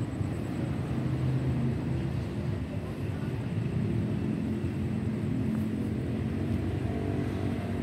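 Steady low rumble of road traffic, with engine hum that shifts in pitch as vehicles move along.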